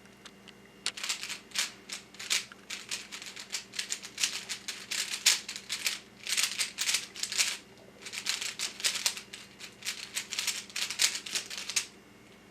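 Rubik's Cube being turned rapidly by hand: dense runs of quick plastic clicks and clacks in bursts, starting about a second in and stopping near the end.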